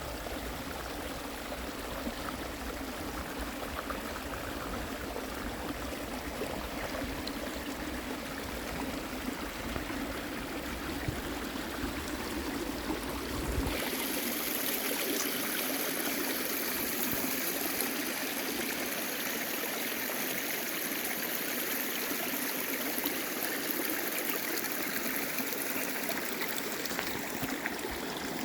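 Mountain stream water running over rocks in a steady babbling rush. About halfway through the sound changes abruptly, losing its low rumble and turning brighter and hissier.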